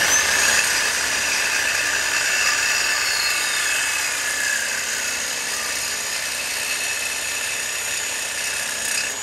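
Reciprocating saw cutting through the metal bump-stop nub on a VW Beetle IRS trailing arm. Its motor whines up to speed at the start, runs steadily with the blade in the cut, and begins to wind down at the very end.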